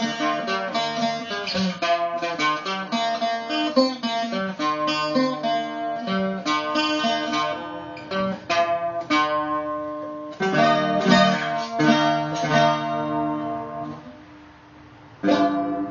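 Handmade bouzouki with East Indian rosewood back and sides, a hard pine top and brass frets, played in quick picked notes and strummed chords that ring clean with no fret buzz. About ten seconds in a strummed chord is left to ring and die away, and strumming starts again near the end.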